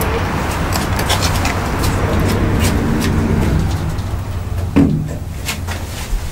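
LUTZ elevator car after a floor button is pressed: a steady low hum with noisy background and light clicks. The car doors shut with a thump about five seconds in, after which the surrounding noise is muffled.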